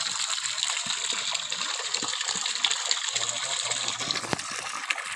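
A stream of muddy water pours steadily from the discharge pipe of a 0.5 hp submersible pump and splashes into a silty pool, flushing out a newly drilled bored well.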